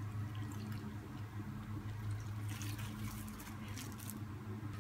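Soy sauce draining and dripping from a measuring cup onto meat and sliced onions in a steel bowl, heard as faint wet drips and ticks over a steady low hum.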